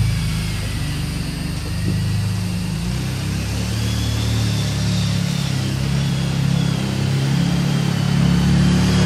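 Kawasaki Brute Force 750 ATV's V-twin engine running as the quad is driven around, its note shifting about three seconds in and again near the end as the throttle changes.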